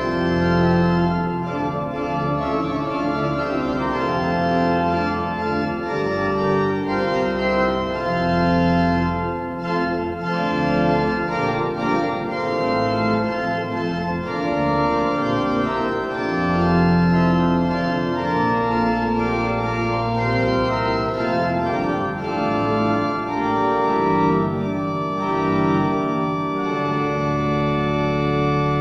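Church pipe organ playing held chords that change every second or two, with deep bass notes underneath.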